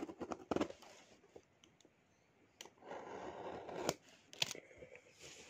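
Close scraping and rustling right at the microphone, broken by a few sharp clicks about half a second in and again near the end, with a longer stretch of scraping in the middle.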